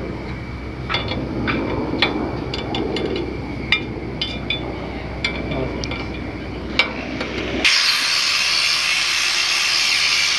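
A spanner clicking and clinking on the nuts and steel plate of a bandsaw mill's drive pulley as the bolts are worked tight, over a low rumble. About three-quarters of the way through it cuts suddenly to a steady hiss.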